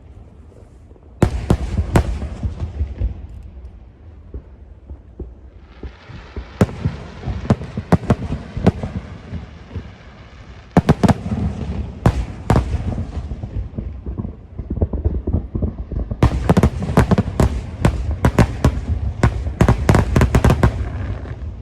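Aerial fireworks shells bursting one after another with sharp bangs. A stretch of crackling hiss comes about six seconds in, then loud bangs around eleven seconds, and a fast volley of many bursts in the last five seconds.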